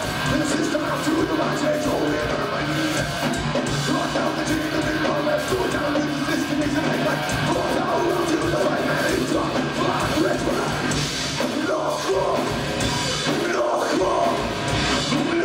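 A nu-metal band playing live at full volume: distorted electric guitar, bass and a drum kit pounding on without a break, heard from within the crowd through a camcorder microphone.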